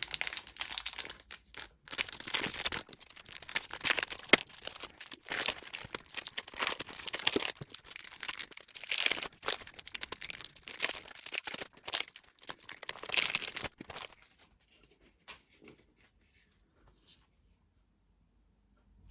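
Trading card booster pack wrappers being torn open and crinkled: an irregular run of tearing and rustling that stops about five seconds before the end.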